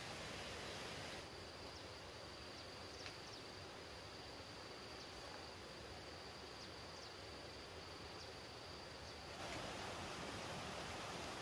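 Faint outdoor ambience: a steady high-pitched insect drone, with a few short faint chirps, over a low hiss. The drone starts about a second in and drops out near the end.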